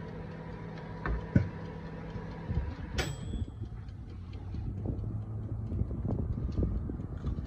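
Crisp rice waffle crackling in a run of small, irregular crunches that thicken toward the end. It opens with a few sharp clicks and one brief metallic click with a short ring, all over a steady low hum.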